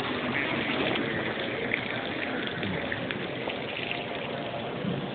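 Water running and splashing steadily in a live-fish display tank.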